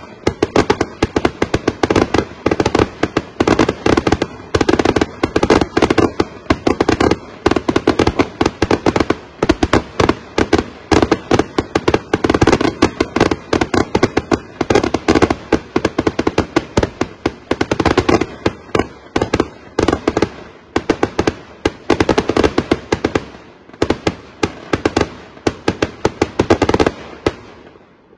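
Finale barrage of Flaming Wolf 1.5-inch ball salutes heard from about a block away: a rapid, loud, near-continuous string of overlapping bangs, several a second, that thins out near the end.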